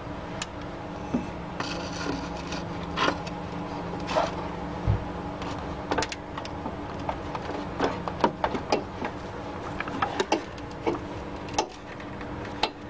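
Irregular clicks, taps and short scrapes of long needle-nose pliers working a rubber hose and its clamp at a power steering reservoir fitting. A steady low hum runs underneath.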